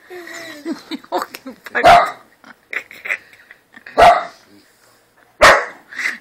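Dog barking: three single loud barks roughly one and a half to two seconds apart, with softer sounds in between.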